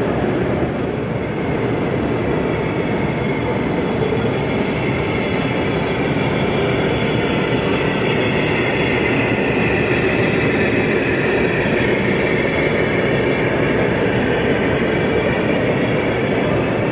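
0 gauge model train running along the layout's track, a steady rolling rail sound against continuous background noise.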